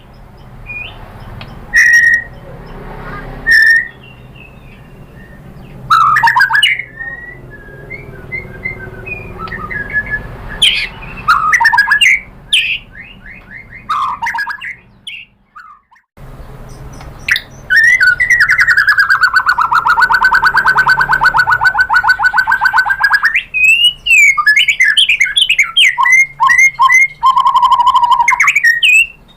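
White-rumped shama (murai batu) singing a loud, varied song of sharp whistled phrases and slurred notes. Past the middle comes one long, rapid rattling trill lasting about six seconds, followed by quick choppy whistles.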